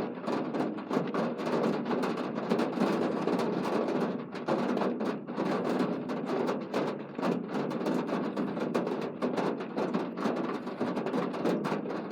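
Heavy rain falling on a hard surface close by: a dense, continuous patter of many small impacts.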